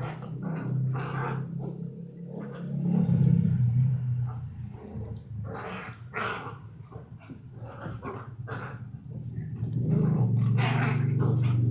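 Dogs growling at each other in play, with long low growls about three seconds in and again near the end, and short sharp barks and snarls in between.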